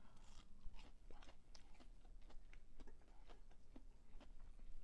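A person chewing fried fast food: a quick, irregular run of small crunches and mouth clicks.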